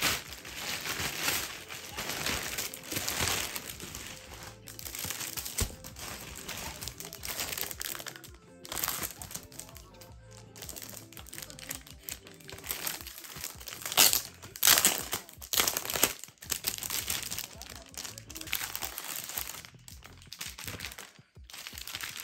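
White plastic shipping mailer crinkling and rustling in irregular bursts as it is handled and opened, over background music.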